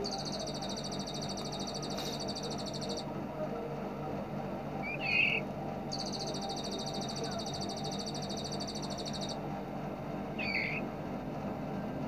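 Recorded songbird calls: a high, rapid rattling trill lasting about three seconds, heard twice, with a single short chirp in each pause. A steady low hum runs underneath.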